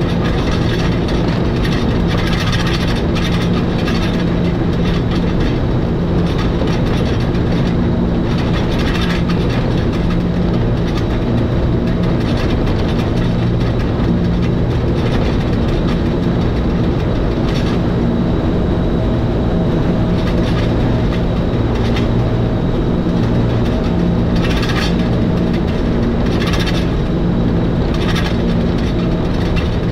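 Electric train on the Schynige Platte rack railway descending the mountain: a steady hum of motors and rack gearing over a low drone, with clicks from the wheels and track now and then.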